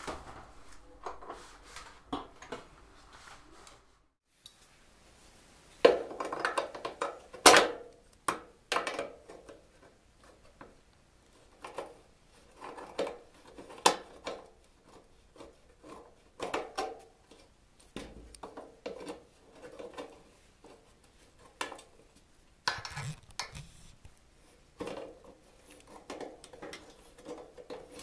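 Pliers gripping and twisting a stripped screw out of a plasma TV's metal back panel: irregular metallic clicks, clinks and short scrapes as the jaws bite, slip and turn on the screw head.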